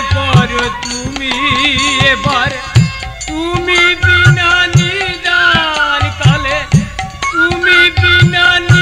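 Instrumental kirtan music: a melody instrument plays held notes that waver and glide down, over the low, pitch-bending strokes of a hand drum.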